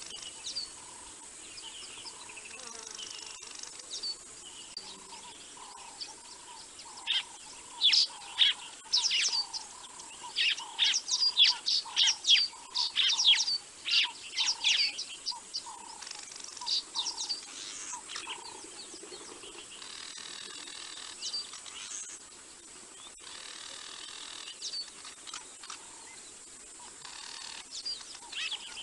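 Wild birds calling: loud, sharp chirps and quick sweeping whistles, busiest through the middle, over a softer single note repeated about twice a second that stops a little past halfway.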